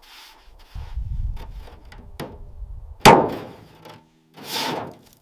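A low rumble for about a second, a click, then a loud sharp bang about three seconds in that dies away, and a softer hissing thump near the end.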